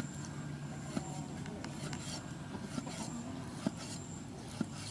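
Large broad-bladed kitchen knife slicing raw beef on a wooden chopping board: soft rubbing strokes of the blade through the meat, with three sharp taps as the blade meets the board.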